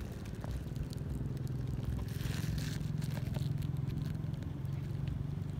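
A low, steady engine hum, swelling a little in the middle, with scattered crackles and rustles close to the microphone.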